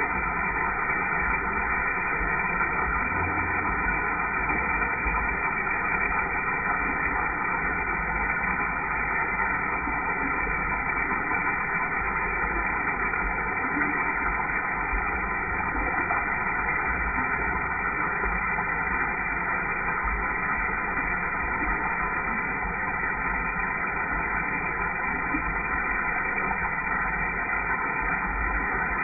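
A thin stream of liquid splashing steadily into the water of a toilet bowl, a continuous hiss with no breaks.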